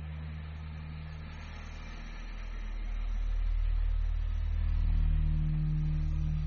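Low, steady electronic drone from an interactive installation's generated soundscape, made of deep sustained tones that swell louder around the middle.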